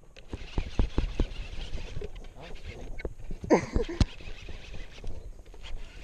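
Irregular clicks and knocks from a fishing rod and baitcasting reel being handled close to the microphone. About three and a half seconds in comes one short, wavering squawk-like call.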